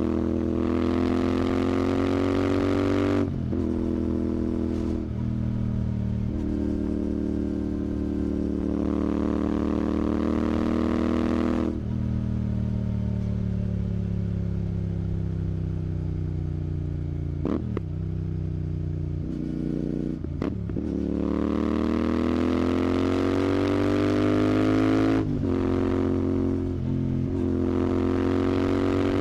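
Royal Enfield Continental GT 650's 648 cc parallel-twin engine through an aftermarket Red Rooster exhaust, pulling up through the gears. The pitch rises repeatedly, broken by a short dip at each gear change. Midway it eases off for several seconds with the pitch falling slowly, then accelerates again.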